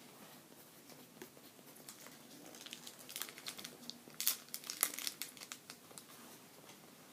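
Foil booster-pack wrapper crinkling as it is handled and torn open, a run of crackles that is thickest in the middle, with the two loudest a little over four seconds in.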